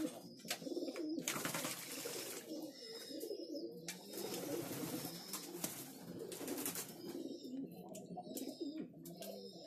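Racing pigeons cooing over and over, with stretches of water splashing as birds bathe in a shallow metal pan, beating the water with their wings.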